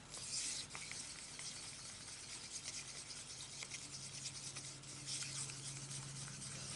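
Faint scraping and light ticking of a stir stick working mica pigment into pouring medium in a small cup. A low steady hum comes in partway through.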